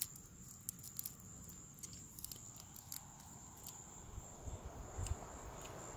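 Faint steady high trill of night insects, with scattered small clicks and crackles of cooked crab shell being broken and picked apart by hand, and a few soft low knocks near the end.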